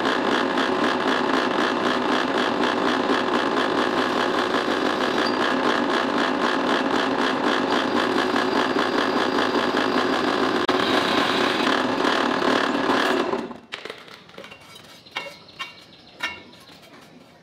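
Electric drill boring a hole through a steel channel with an oiled twist bit, running steadily and then stopping about 13 seconds in, followed by a few light metal clinks.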